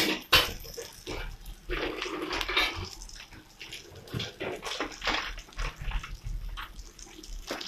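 Bean-and-potato burger patty shallow-frying in hot oil on a flat griddle: the oil sizzles and crackles unevenly, with sharp pops scattered through.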